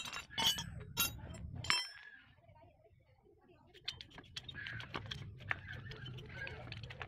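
Metal parts and tools clinking as a brush cutter engine is worked on by hand: several sharp, ringing clinks in the first two seconds, then after a short lull a busy run of softer clicks and rubbing.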